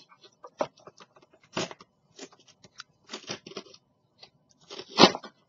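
Clear plastic blister pack and cardboard backing card crackling and scraping in short, irregular bursts as an X-Acto knife cuts along the packaging's edge and the plastic is flexed. A sharp crack about five seconds in is the loudest.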